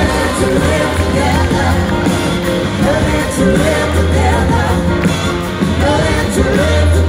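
A large rock band with a horn section and singers playing live, with singing over a heavy bass, heard from the audience.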